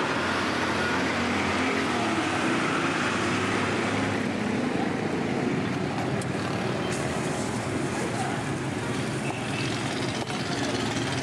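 Steady street traffic noise, with voices faintly in the background.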